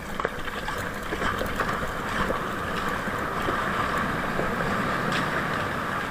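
Steady rush of water along the hull of a six-person outrigger canoe moving at speed, with wind on the microphone and a few small splashes and ticks.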